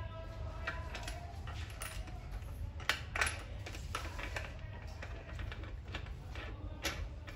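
Irregular light clicks and clinks of knob nuts being handled and threaded onto the lid bolts of an aluminium autoclave, with a sharper knock about three seconds in, over a steady low hum.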